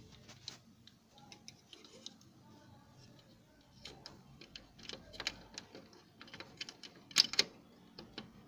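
Irregular plastic clicks and taps as a paper pickup roller is handled and pushed onto its shaft inside an HP LaserJet 3015dn laser printer. A sharper pair of clicks comes about seven seconds in.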